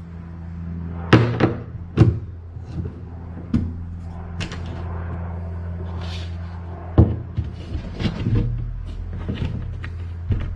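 Irregular hard knocks and clunks as the seat and deck hatch parts are handled and fitted into a wooden stitch-and-glue kayak. The sharpest come about a second in, at two seconds and at seven seconds, over a steady low hum.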